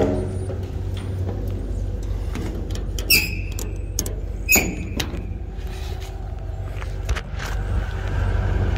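Steady low drone of the truck's 6.6 L turbo-diesel V8 idling, with two sharp metallic clacks about a second and a half apart from a stainless compartment-door latch being worked.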